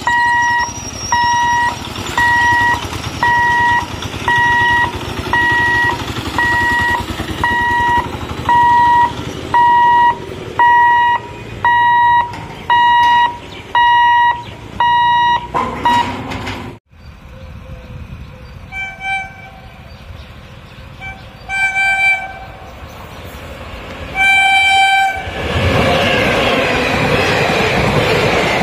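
Level-crossing warning alarm beeping about once a second for the first half. After a sudden cut, a train horn sounds several short toots and then a longer blast, and the express train's coaches rush past with a loud rumble of wheels on rails.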